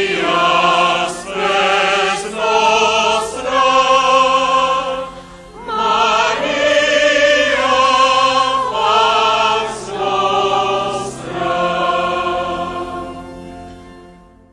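Slow sacred singing: sustained sung notes with vibrato, each held about a second, over a soft continuous accompaniment. It fades out over the last few seconds.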